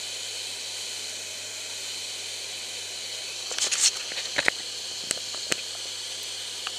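Veal schnitzels frying in a hot pan, a steady sizzle. A handful of sharp clicks and knocks come about halfway through, with a few single ones after.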